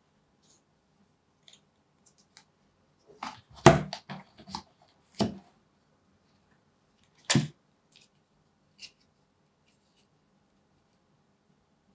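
Unboxing handling of a phone's white cardboard box and its paper inserts: a cluster of knocks and scrapes about three to four and a half seconds in, the loudest near the start of it, then a single knock about five seconds in and another loud knock past seven seconds, with faint ticks in between.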